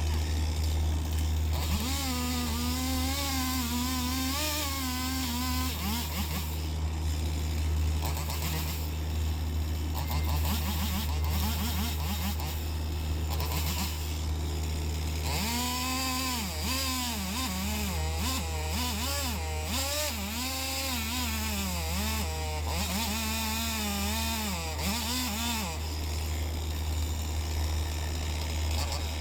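Chainsaw running and cutting, its pitch wavering up and down, in two long stretches, with a steady low engine hum underneath throughout.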